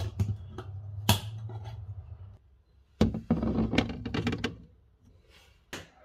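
Handling sounds of a glass jar and its lid: clicks and one sharp clack about a second in, over a low hum. Then a dense clattering rattle of the container being handled from about three seconds in, and a sharp knock near the end as a fridge is opened.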